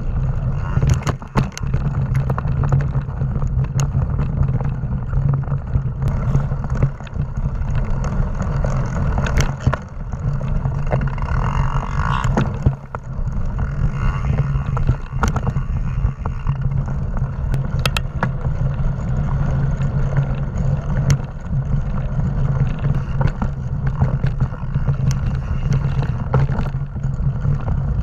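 Mountain bike ridden fast over forest singletrack: a steady rumble of tyres and wind with frequent sharp rattles and knocks as the bike goes over bumps and roots.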